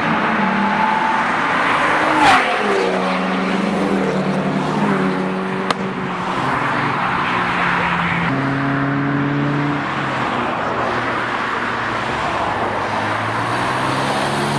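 Several modified car engines running and revving lightly as the cars drive off, their pitch holding and stepping up and down. A sharp pop stands out about two seconds in.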